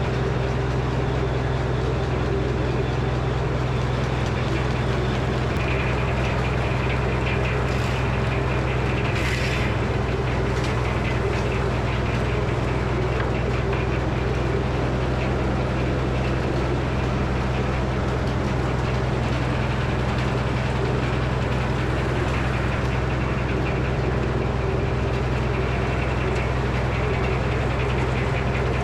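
Engine driving a Frick sawmill, running steadily under load with a deep, even drone. A brighter, higher sound joins it for a few seconds between about six and ten seconds in.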